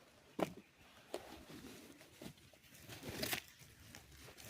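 Faint scattered rustles and scrapes of hands digging through dry soil and tangled sweet potato vines in a cloth grow bag, the loudest rustle about three seconds in.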